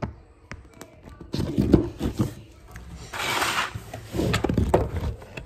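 Handling noise of a phone being repositioned: irregular knocks and bumps with rubbing against the microphone, and a short rustling hiss about three seconds in.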